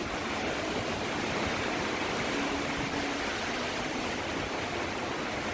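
Hurricane-force wind rushing steadily: an even, unbroken hiss.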